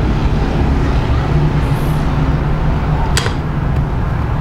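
Steady low hum and rumble of background noise, with one sharp click about three seconds in.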